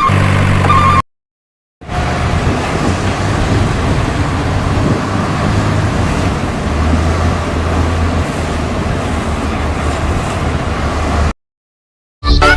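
Heavy truck engine running with a low rumble; for the first second a reversing beeper sounds over it. After a brief break the engine rumble continues, noisier, then cuts off, and music starts right at the end.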